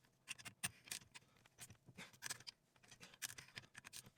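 Faint, irregular small clicks and light scrapes of parts and tools being handled.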